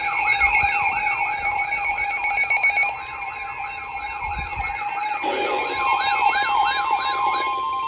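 Weather radio emergency alert alarm sounding for a severe thunderstorm warning: a siren-like warble rising and falling about three times a second over steady tones. A steady warning tone joins about six seconds in, and the warble stops just before the end.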